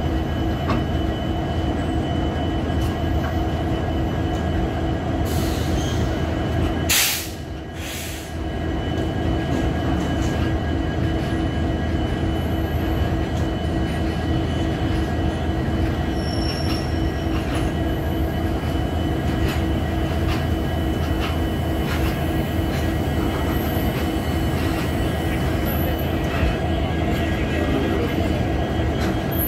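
BOXN open wagons of a freight train rolling past at close range: a steady rumble of wheels on rail with a constant ringing tone over it. One sharp crack about seven seconds in, after which the sound briefly drops quieter.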